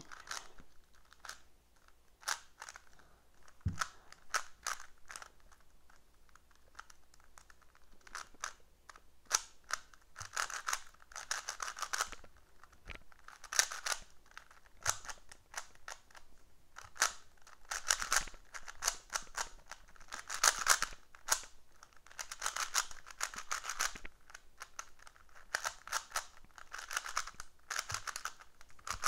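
Plastic Rubik's cube being turned by hand: irregular clicking and clacking as its layers snap round, in quick runs with short pauses between them.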